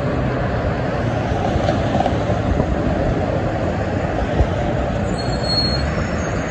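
Steady roar of dense freeway traffic: tyres and engines of heavy trucks and cars passing on several lanes below. A brief high squeal comes about five seconds in.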